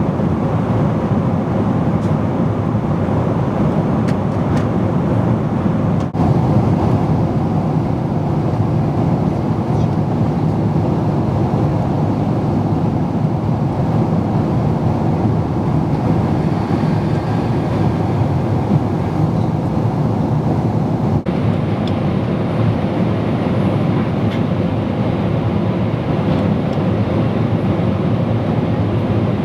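Steady roar of a jet airliner's cabin in cruise flight: an even, deep rush of engine and airflow noise with no change in pitch.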